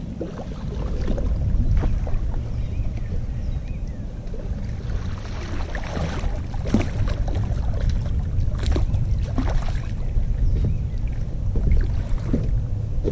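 Low rumble of wind on the microphone, with a run of splashes and knocks from about five seconds in as a hooked catfish is netted alongside the boat.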